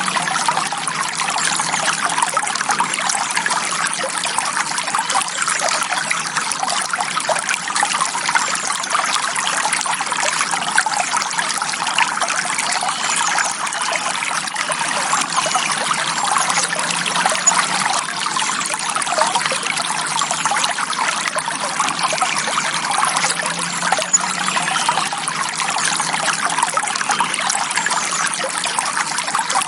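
Clear forest stream running steadily over rocks, a close, continuous trickling and babbling.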